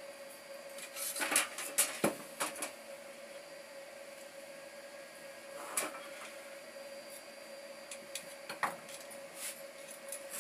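Small metal clicks and taps from handling a metal electronics housing and a soldering iron on a workbench: a quick cluster of them early, then single ones about 6 s in and near the end. A faint steady hum runs underneath.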